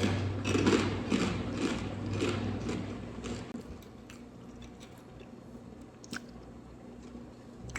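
Close-miked chewing of Bojangles fried chicken, wet and slightly crunchy, about two chews a second, stopping about three and a half seconds in. A single small click follows near six seconds.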